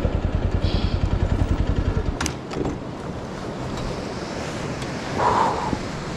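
Motorcycle engine idling with a fast, even low pulse, cut off abruptly about two seconds in, then a few sharp clicks.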